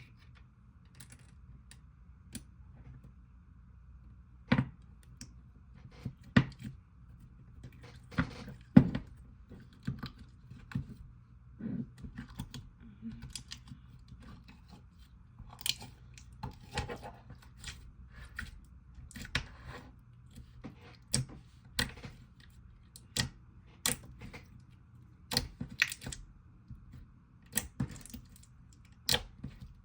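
Clear slime with beads being kneaded and pressed by hand as charms are mixed in, giving irregular sharp clicks and pops.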